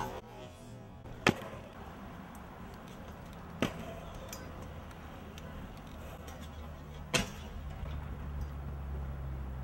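Trick scooter landing on concrete: three sharp slaps of the deck and wheels hitting the ground, about a second in, near four seconds and about seven seconds in, over a low steady background rumble.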